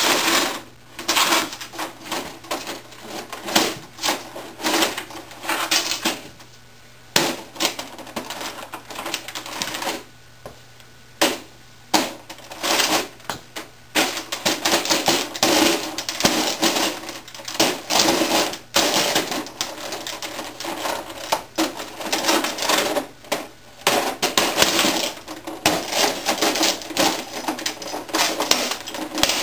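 The plastic casing and keys of an old 1980s word processor crack, click and rattle under the weight of heavy leather boots as it is stood on and crushed. The clatter is dense and irregular, with two short lulls about a third of the way in.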